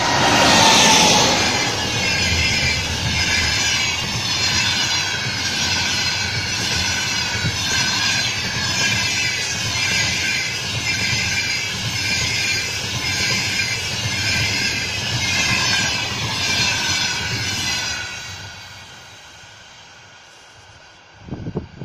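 An EP20 electric locomotive passes at speed hauling a passenger train: a loud rush as the locomotive goes by, then the coaches' wheels rolling over the rails with a regular beat. The sound fades away over the last few seconds as the train recedes.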